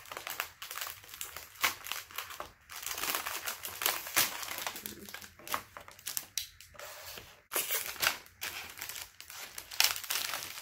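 Plastic candy wrapper and cardboard packaging being handled and opened by hand: irregular crinkling and rustling with sharp crackles.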